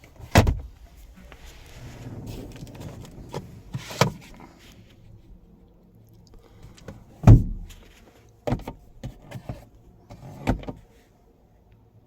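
Plastic clacks and thumps of a 2020 Kia Optima's glove box and interior trim being opened and shut by hand, with a soft rustling of handling in the first few seconds. About six separate knocks, the heaviest a little after seven seconds in.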